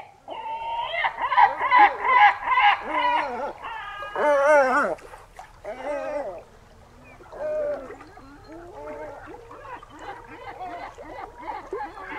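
Great black-backed gull calling: a fast series of about eight repeated calls, then a louder wavering call about four seconds in, followed by quieter scattered calls.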